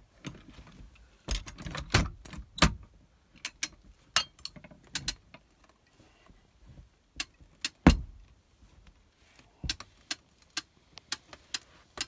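Irregular metal clicks and clacks from a carpet power stretcher being set and its lever handle pumped to stretch the carpet, with a few heavier thumps a second or two in and one loud thump near the end.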